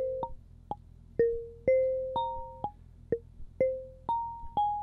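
Intellijel Plonk physical-modelling module playing a marimba-like tone: a short four-note melody of struck notes, about two a second. Each note rings for a different length, some long, some clipped short, because a second sequence running out of sync with the melody is modulating the decay.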